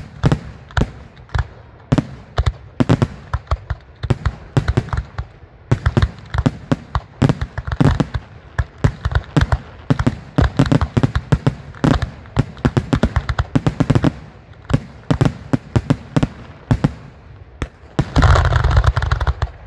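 Aerial firework shells bursting in quick succession, dozens of sharp bangs and crackles close together, thickening into a dense, unbroken barrage near the end.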